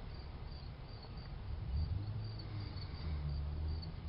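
Insect chirping in the background, a regular high chirp several times a second, over a low rumble.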